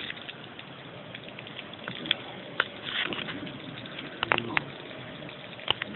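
Kyosho Mini-Z MR-03 micro RC car running on a wooden tabletop: a low steady hiss with scattered sharp clicks and knocks, several close together a little past the middle.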